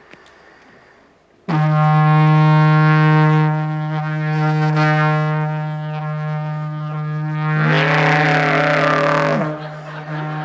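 Reproduction Loughnashade trumpa, an ancient Irish war horn, blown as a war call. About a second and a half in, a loud, steady low drone rich in overtones sets in. About seven and a half seconds in, a higher note slides up over the drone, holds for about two seconds and slides back down, and the drone carries on.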